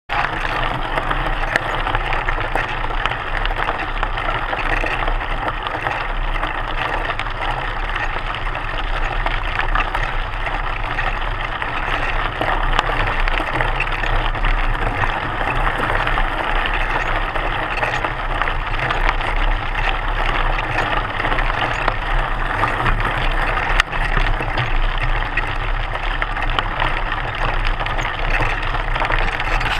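Mountain bike rolling downhill on a loose gravel trail, heard from a camera on the front fork: a steady crunch and rattle of the knobby front tyre over the stones, with small clicks and clatter from the bike over the bumps.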